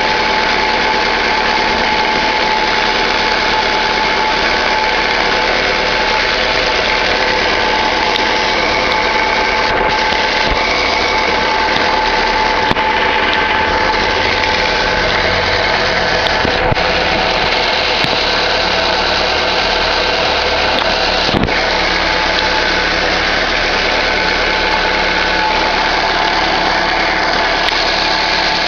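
2011 Chevrolet Classic's four-cylinder engine idling steadily with a continuous bearing-like whine from the clutch area, the noise that goes away when the clutch pedal is pressed and returns when it is released. A new release bearing and clutch have not cured it. A short knock sounds about two-thirds of the way through.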